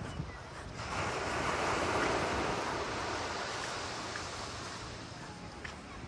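Sea surf: a wave breaking and washing up the beach, its hiss swelling about a second in and slowly fading over the next few seconds. Wind rumbles on the microphone underneath.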